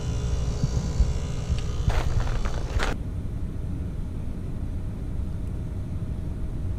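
ClimateMaster geothermal heat pump running with a steady low rumble. A few short knocks and rustles come around two to three seconds in, after which the higher hiss drops away and only the rumble remains.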